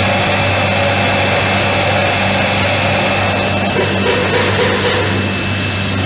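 Automatic rolling-drum bottle washing machine running: a steady mechanical hum under a loud, even hiss.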